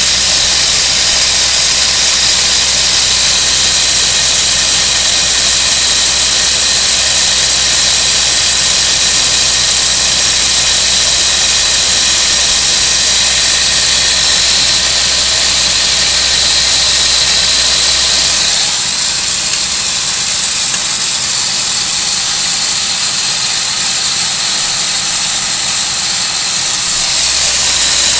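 A machine running steadily: a loud, even hiss over a low hum. The hum drops out about 19 seconds in and comes back near the end.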